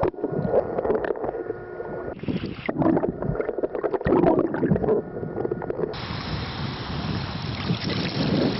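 Wind buffeting the microphone over splashing river water, with irregular knocks.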